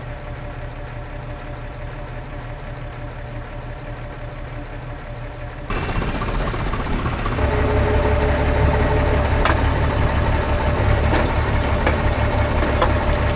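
Diesel tractor engine idling, then brought up to higher revs about six seconds in. From about seven seconds it runs harder with a steady whine, working the hydraulics to lift the winch, and a few light metallic knocks come late on.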